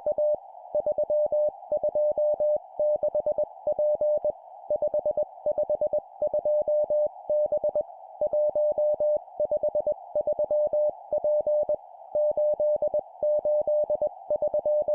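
Morse code (CW) practice sent at 20 words per minute: a single steady beep keyed on and off in dots and dashes, in four-character groups of three numbers and a letter, with short pauses between groups over a faint hiss.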